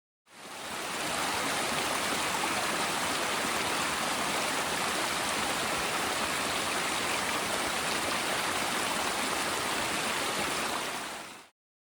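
Steady rush of a stream's flowing water, fading in just after the start and fading out near the end.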